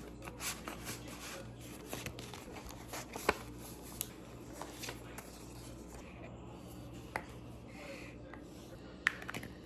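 Scattered light clicks and rustling of small objects being handled, with a sharper click about a third of the way in and another near the end, over a faint steady hum.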